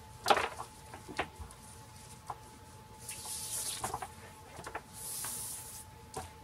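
Quiet handling noises of a flexible tape measure and quilt fabric: a few light taps and clicks, and two soft swishes of cloth or tape sliding, about three seconds in and again about five seconds in.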